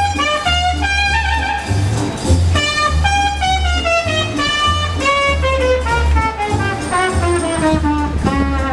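Music: a horn-like melody of held notes stepping downward in repeated phrases over a steady, pulsing deep bass beat.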